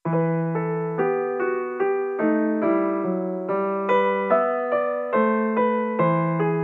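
Background piano music: a gentle melody of single notes struck about twice a second over held bass notes, each note fading after it is struck.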